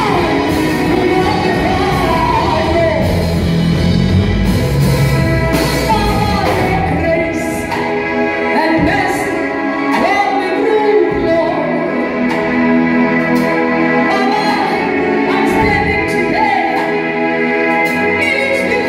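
A woman singing a gospel worship song into a microphone over amplified keyboard and band backing. The bass and drums drop out for several seconds in the middle, then come back.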